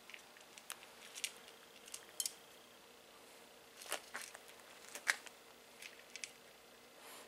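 A cat crunching dry kibble from a metal bowl: irregular sharp crunches and clicks, several each second at times.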